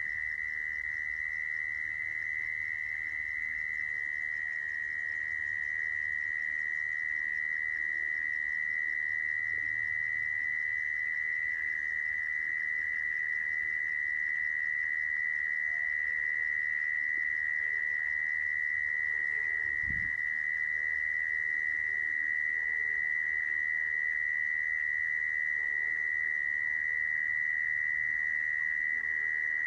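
Mole cricket song: a continuous, unbroken trill at one steady pitch, with one brief low thump about two-thirds of the way through.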